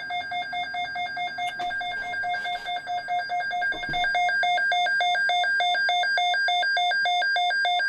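NOAA weather alert radio sounding its alarm: a rapidly pulsing electronic tone that sets off as the radio is triggered and gets louder about halfway through. It signals an incoming alert, here a new severe thunderstorm watch.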